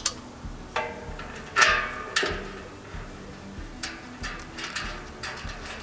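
Metal clinks and knocks as a steel cross brace and its bolts are fitted to the grill cart's legs, the loudest knock about a second and a half in. Lighter ticks follow about twice a second while a bolt is threaded in by hand.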